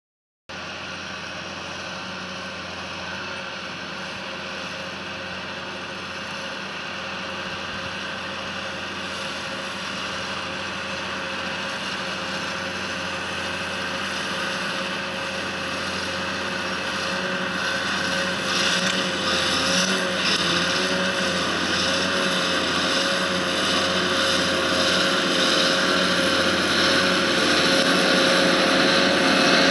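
Tractor engine running steadily while its side-mounted mower cuts grass, with a steady whine over the engine noise. It grows gradually louder as the tractor approaches.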